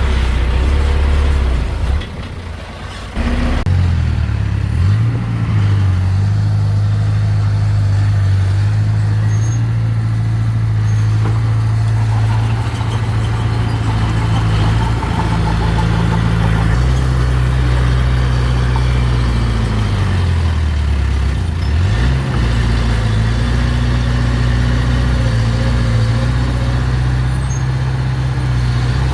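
Diesel engine of a mini bulldozer running under load. It revs up a few seconds in, holds a steady low drone, then drops and climbs again about two-thirds of the way through.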